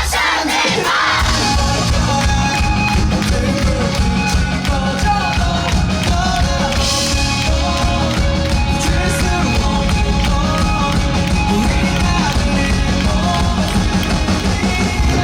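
Rock band playing live and loud, with drums driving a steady beat. The bass and drums drop out briefly at the start and the full band crashes back in about a second in.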